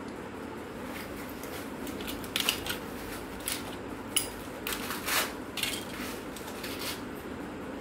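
Hard plastic parts of an old camera's body clicking and scraping as they are handled and pried apart, a run of sharp clicks between about two and seven seconds in. A steady background hum runs underneath.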